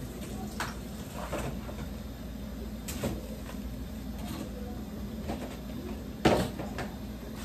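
Scattered knocks and clicks of kitchen items being handled as seasonings are got out, with the loudest, sharpest knock about six seconds in, over a steady low hum.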